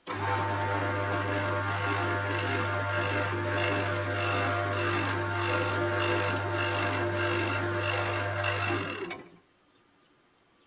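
Wood lathe running with a steady low motor hum while a cloth is held against the spinning padauk handle, a soft rubbing that repeats about twice a second. It starts abruptly and cuts off suddenly about nine seconds in.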